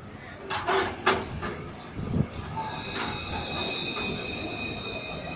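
Melbourne articulated low-floor tram rolling past on its rails: a few clattering knocks in the first second, then a steady high-pitched wheel squeal, several tones at once, setting in about two and a half seconds in.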